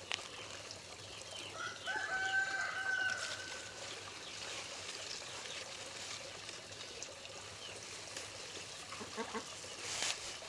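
A rooster crowing once, a held call of about a second and a half that starts about two seconds in.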